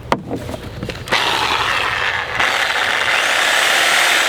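Harbor Freight 6-amp corded reciprocating saw running free, not cutting anything, after a sharp click. Its steady whirring buzz starts about a second in and steps louder about halfway through.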